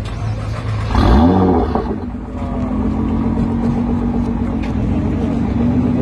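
Nissan GT-R's twin-turbo V6 through an aftermarket Armytrix exhaust: a sudden rise in revs about a second in, the loudest moment, then the engine holds a steady, raised note.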